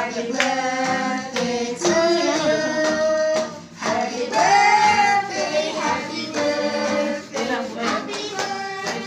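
A song with children's voices singing a melody, some notes held, over a steady beat.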